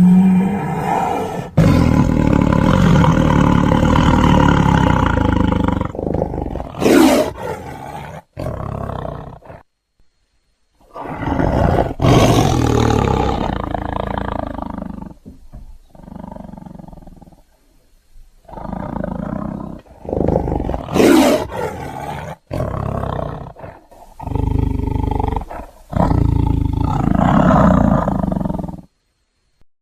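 Custom Gwythaint creature sound effects: a run of loud animal-like cries, one after another, some lasting several seconds, separated by short silent gaps.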